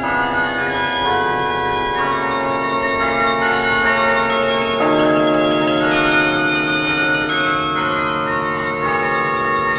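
The Yale Memorial Carillon's bells playing a slow tune, each new note struck every second or so and ringing on over the ones before it.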